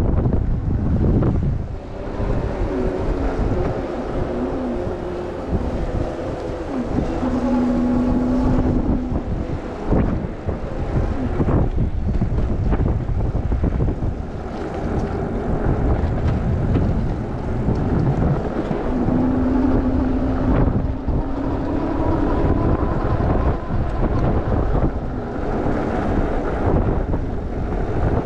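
Wind rushing over the microphone while riding a Super73 electric bike, with the electric motor's whine rising and falling in pitch twice as the bike speeds up and eases off.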